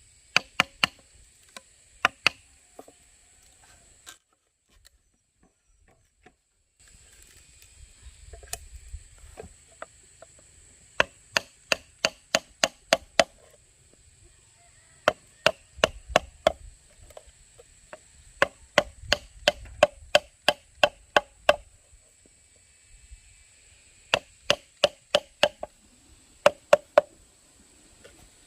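Quick runs of chopping blows on bamboo, about four a second, each stroke with a short hollow ring. The blows stop briefly about four seconds in, then resume in several runs.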